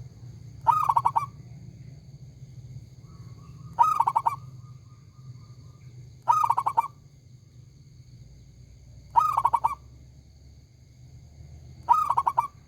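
Zebra dove (perkutut) cooing, five short loud phrases of quick pulsed notes about every three seconds, over a steady low hum.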